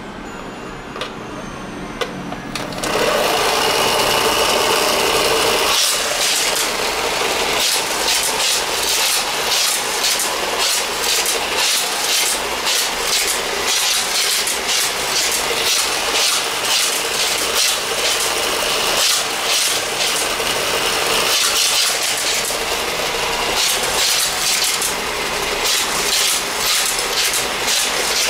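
Vintage Estrela Fitti Show toy race track: a few light plastic clicks as it is set, then about three seconds in the track starts up with a steady mechanical whirr and a fast plastic rattle as the small cars run along the grooved track.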